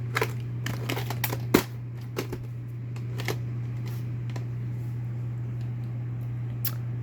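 Plastic VHS tapes and cases being handled, with a run of sharp clicks and knocks in the first few seconds, then a lone tick near the end, over a steady low electrical hum.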